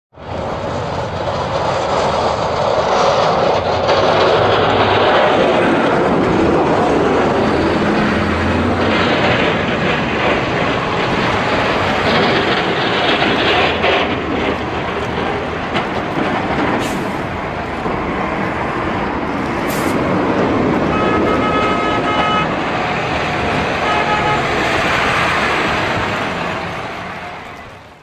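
Snowplow passing by: a loud, steady rush of engine and road noise, with two short pitched tones about three-quarters of the way in, fading out at the end.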